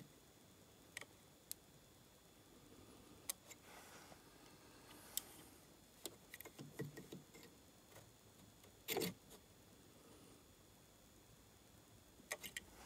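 Near silence with scattered faint clicks and taps from steel calipers being set into a milled slot and handled, with a slightly louder knock about nine seconds in and a few quick clicks near the end.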